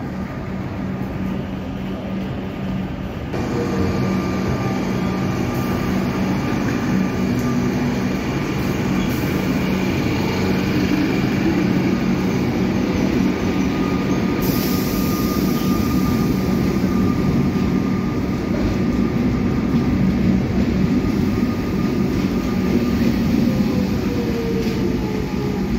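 Melbourne Metro electric suburban train moving along a station platform: a steady rumble of wheels on rail with a steady whine over it, growing louder about three seconds in.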